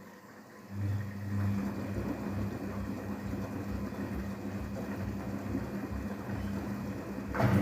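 Daewoo DWD-FT1013 washing machine's drum motor starting about a second in and turning the drum with a steady low hum, uneven pulsing underneath. A brief louder burst comes near the end.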